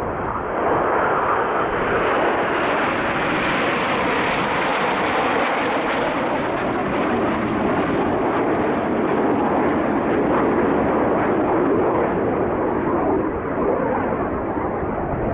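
A formation of Aermacchi MB-339 jet trainers, each with a Viper turbojet, flying past with a steady jet roar. The roar grows brighter and higher about four to six seconds in, then dulls again as the jets move on.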